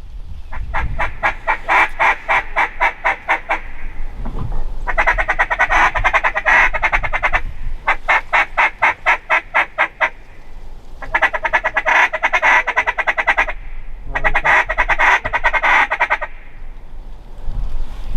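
Duck call blown by a hunter in five long runs of rapid quacks, about seven a second, with short pauses between runs, calling to incoming ducks.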